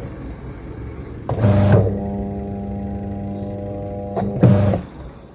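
Washing machine wash motor switched on with a click and a short louder surge about a second in, then running with a steady electric hum for about two seconds, and cut off with a click and another short surge near the end.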